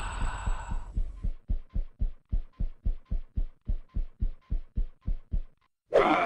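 Steady rhythmic thumping, about five dull beats a second, that stops after about five and a half seconds; a brief loud cry-like sound follows near the end.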